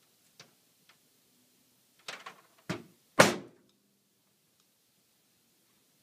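Hammer tapping the end of an Allen driver held against the back of a scooter wheel bearing, knocking the old bearing out: a couple of faint ticks, then three sharp knocks about two to three and a half seconds in, the last the loudest with a short ring.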